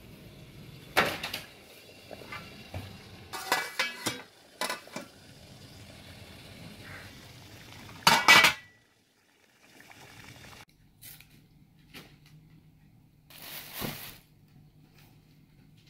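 Metal cookware and utensils clinking and clattering: several sharp clinks in the first few seconds, the loudest clatter about eight seconds in, and a softer one near the end.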